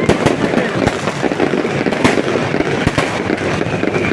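Fireworks going off in quick, irregular succession: many sharp bangs and pops, with a louder bang about two seconds in and another near three seconds, over a steady background din.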